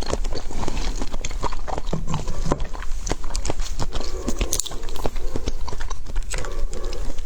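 Close-miked chewing of food: many quick, irregular clicks of mouth and food sounds.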